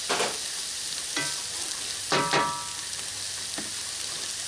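Potatoes, sausage, bacon and onions sizzling steadily in a cast iron skillet. Over the sizzle come four or five short knocks against the pan; the loudest, at the start and about two seconds in, have a brief ring.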